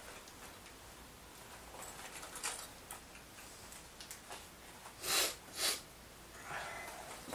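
A person moving about in a quiet room with wooden floorboards: faint scattered clicks, then two short scuffing or rustling noises half a second apart about five seconds in, and a softer one near the end.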